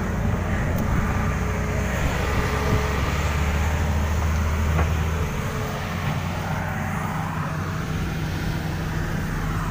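A heavy machine's engine running steadily with a low drone, its tone shifting about five seconds in.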